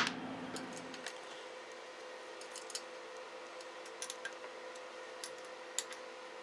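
Faint, scattered light metallic clicks of a small hex key and screws while fastening the brass lead-screw nut on a CNC3018 Z-axis carriage, over a faint steady hum.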